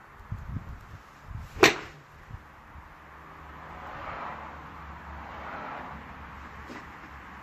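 A golf club striking a ball once: a single sharp crack about a second and a half in, preceded by a few soft low thumps. A faint hiss swells and fades afterwards.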